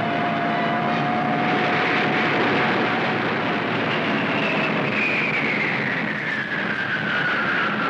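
Propeller fighter plane engines droning on an old film soundtrack. A high whine starts about halfway through and falls steadily in pitch to the end.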